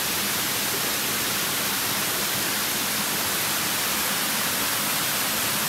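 Kanabuan Falls waterfall: a steady, even rush of falling water.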